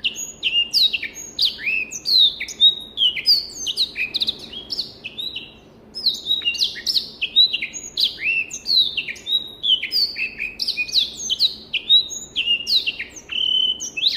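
Black-throated canary (blackthroat, Crithagra atrogularis) singing a fast, continuous song of varied high chirps, falling slurred whistles and short trills, with one short break a little before halfway.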